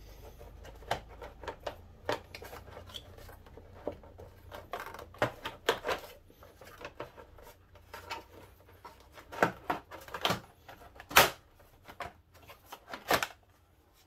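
Plastic motorcycle fairing panel being worked loose by hand: an irregular string of clicks and knocks as its tabs and clips pop free and the plastic rubs and bumps against the frame.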